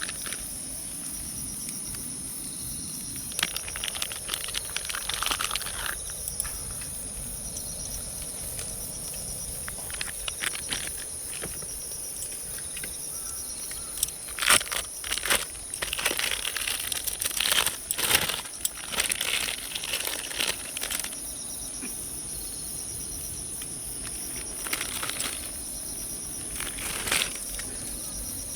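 Steady high-pitched insect chirring, with irregular bursts of rustling and clattering, busiest around the middle.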